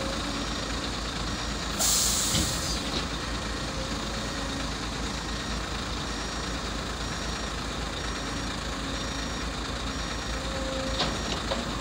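Heavy diesel dump truck engine running steadily, with a loud air-brake hiss about two seconds in.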